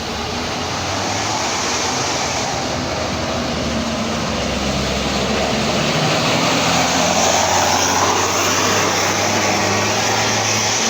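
Tour bus engine pulling hard up a steep climb under full throttle: a steady low drone with a broad rushing noise that grows louder about two-thirds of the way through as the bus draws near.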